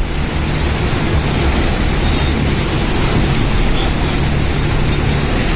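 Steady loud rushing noise of wind and heavy rain buffeting the microphone, with a low rumble underneath.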